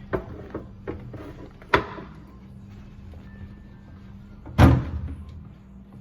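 A few knocks and clunks, the loudest a heavy thud about four and a half seconds in, over a faint steady hum.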